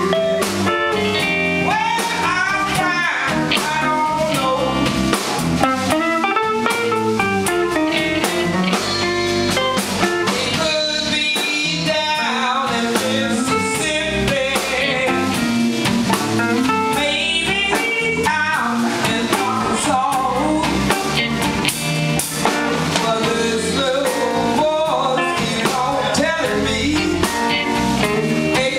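Live blues band: a woman's lead vocal sung over electric guitars, bass guitar and a drum kit.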